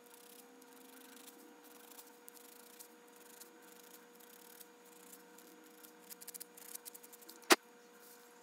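Strip of sandpaper rubbed by hand over a small carved spalted-wood lure body: faint, short scratching strokes, with a quicker run of scratches near the end. One sharp click, the loudest sound, comes shortly before the end.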